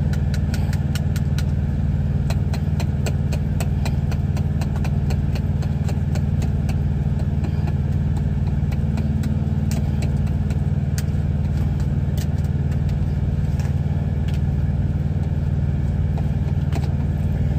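Semi truck's engine idling with a steady low drone, over quick, irregular clicks and scrapes of a wire whisk against a foil pan as potatoes are mashed by hand. The clicking is busiest in the first half and thins out later.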